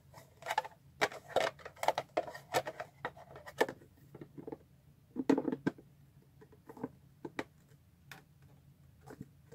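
Hard plastic bento box pieces clicking and knocking together as they are handled and fitted: quick taps and clicks through the first few seconds, a louder cluster about five seconds in, then only scattered clicks.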